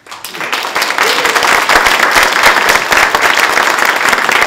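Audience applauding: many people clapping, swelling over the first second and then holding steady.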